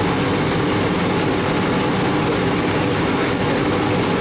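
Steady roar of a commercial kitchen's machinery and ventilation, with a constant low hum.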